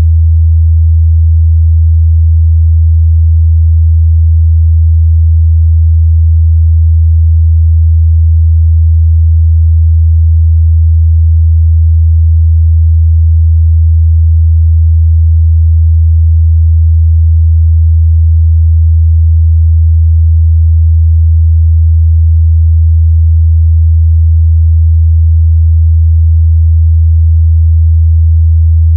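A pure 81 Hz sine test tone: one low, steady hum held at a constant pitch and level.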